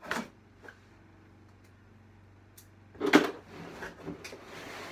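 A long cardboard box being handled: a knock at the start, then about three seconds in a loud thump as the box is turned over and set down flat, followed by cardboard scraping and rustling.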